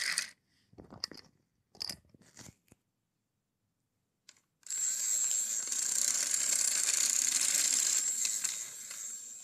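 Small battery motor and plastic gears of a Thomas & Friends Duck toy engine running with a steady, high-pitched whir, starting about five seconds in and fading near the end. Before it come a few light plastic clicks.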